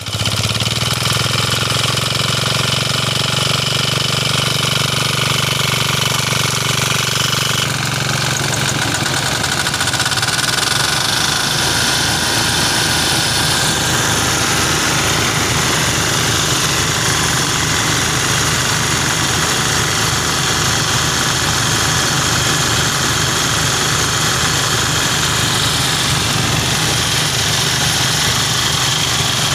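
Small single-cylinder engine running steadily at speed, driving a portable rice thresher as rice stalks are fed into its threshing drum.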